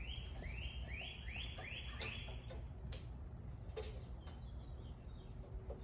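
A bird calling in a quick series of about six rising high notes in the first two and a half seconds, with a few scattered clicks over a steady low rumble.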